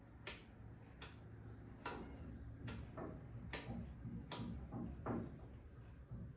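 Rotary selector switch on a 1974 Akai AA-930 stereo receiver being turned, clicking six times through its detent positions at about one click every 0.8 seconds.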